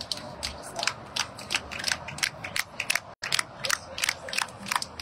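A rapid, uneven series of sharp clicks, about three to four a second, with a brief break about three seconds in.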